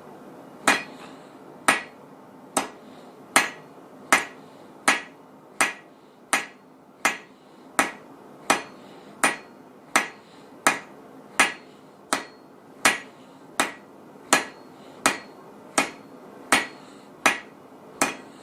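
Blacksmith's hand hammer striking hot steel on an anvil in a steady rhythm, about one blow every 0.7 seconds, each with a short metallic ring. The bar is being thinned with the round face of the hammer, working two sides.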